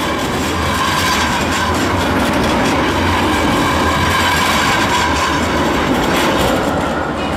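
Modern low-floor electric tram running past at close range: steady rumble of steel wheels on the rails, with a faint high whine.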